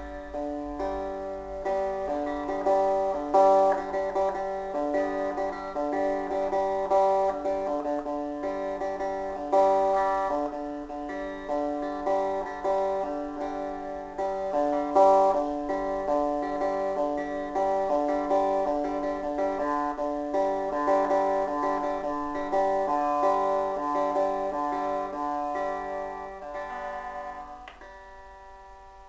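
Guitar playing a melody of picked notes and chords, thinning out and fading near the end.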